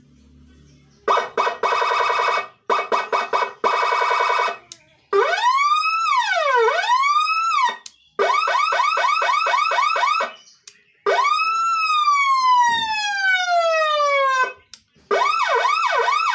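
Electronic siren module cycling through its tones over a 25-watt Narae NSH2020S speaker. About a second in, a fast pulsing buzzy tone starts, followed by a slow wail that rises and falls twice, a quick yelp, then one long tone falling in pitch over about three seconds, and a fast whooping yelp near the end.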